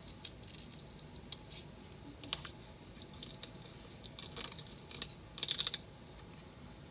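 Light clicks and paper rustling from sticker sheets being handled, with scattered ticks at first, then a denser crinkly burst about five seconds in, the loudest part.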